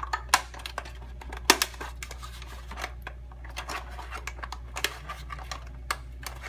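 Plastic snap tabs of a Cube 3 printer cartridge's clear cover clicking as they are pulled free around its edge, with handling rattle of the plastic shell. The clicks come irregularly; the sharpest are just after the start and about a second and a half in.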